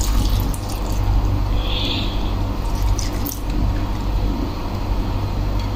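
Vinegar poured from a plastic bottle onto vegetables in an aluminium pot: a steady liquid trickle and splash.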